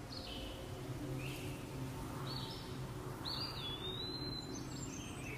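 Birds chirping in short calls, with one longer whistled call a little past the middle, over a faint steady low hum.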